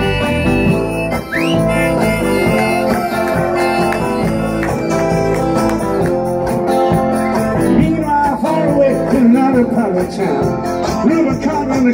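Live rock band playing through a PA: electric guitars, bass guitar and drums, with a male lead vocal singing over them.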